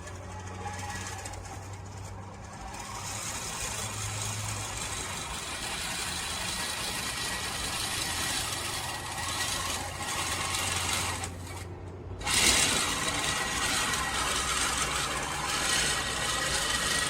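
LawnMaster LMRM1602 16-inch five-blade manual push reel mower running through grass, its spinning reel clattering and clicking steadily. It breaks off briefly about twelve seconds in, then starts again louder.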